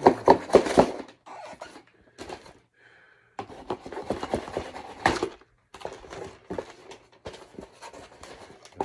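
Cardboard shipping box being opened by hand: the tape is cut and the flaps are pulled open and handled, giving irregular crackling, scraping and rustling with sharp clicks and thunks, loudest at the start and again about five seconds in.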